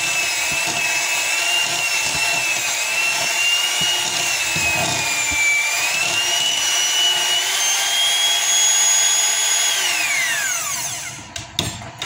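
Electric hand mixer running, its beaters whipping gel food colouring into a thick no-bake cheesecake filling in a bowl. The motor whine wavers in pitch as the beaters work the filling, then winds down and stops when it is switched off about ten seconds in.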